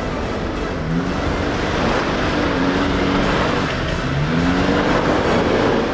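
4WD engine revving under load as it climbs a loose dirt track towing a camper trailer, the revs rising about a second in and again near the end, over steady tyre and gravel noise.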